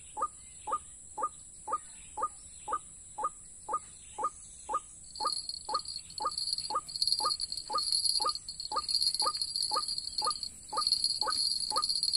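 White-breasted waterhen calling, one short call repeated evenly about twice a second, as used to lure the birds to the trap. From about five seconds in, a high pulsing buzz joins and grows louder than the calls.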